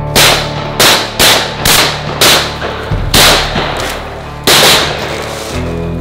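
Shotguns firing about seven shots in quick, uneven succession, each a sharp crack with a short echo.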